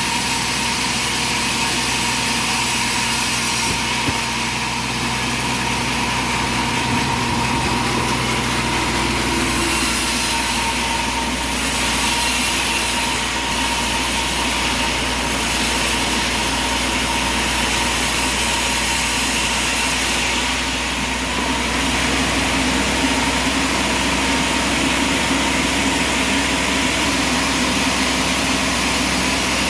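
Sawmill machinery running steadily with an engine-like hum, its pitch shifting about ten seconds in and again around twenty seconds.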